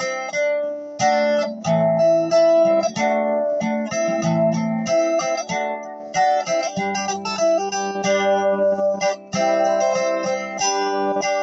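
Guitar playing a run of plucked and strummed notes, cut by abrupt short dropouts in the sound.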